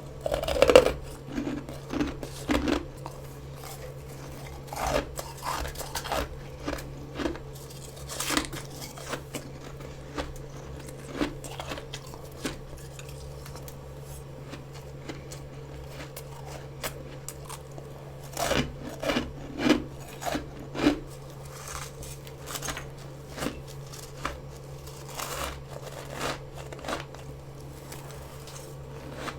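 Fresh freezer frost bitten and chewed close to the microphone: irregular crisp crunches in clusters, with pauses between bites. A steady low hum runs underneath.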